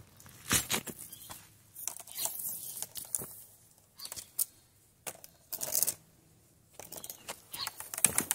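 Handling noise from a coil of black plastic PEX pipe being lifted and moved about: irregular scuffs, light knocks and rustles in short bursts with brief pauses between them.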